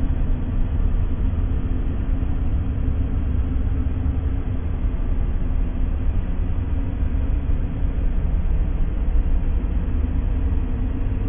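A steady, unchanging noise track for relaxation, with most of its weight in a low, even rumble rather than a flat hiss, and no distinct events.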